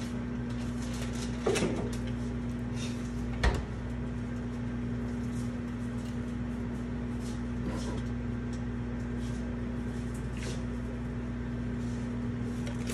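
Steady low hum of kitchen appliances with a constant tone, broken by two short knocks about one and a half and three and a half seconds in, and a few faint clicks, as kitchen things are handled during cleanup.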